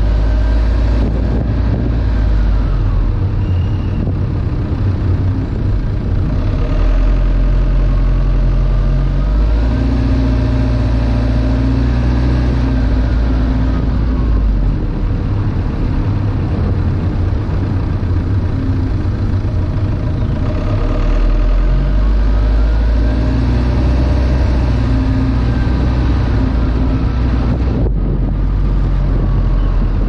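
A car driving, recorded on a car-mounted GoPro Hero 5: a loud, steady low rumble of wind and road noise on the camera's microphone. Under it, a faint engine whine rises and falls three times as the car speeds up and eases off.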